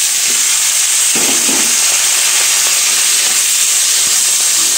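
Roughly chopped raw onions frying in hot butter and ghee in a kadhai: a loud, steady sizzle as the cold onions hit the hot fat.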